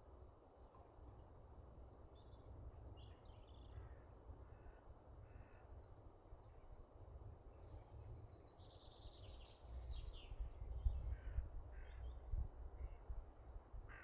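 Birds calling: many short calls scattered throughout, over a faint low rumble that swells from about ten seconds in.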